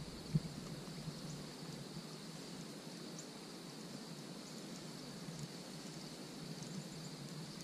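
Quiet outdoor riverbank ambience: a steady, high-pitched insect chorus over faint background hiss, with one soft click about half a second in.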